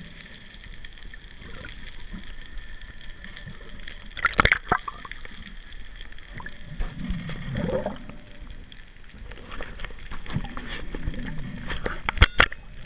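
Muffled underwater water noise as a swimmer moves in the sea, with a few sharp knocks about four seconds in and twice near the end.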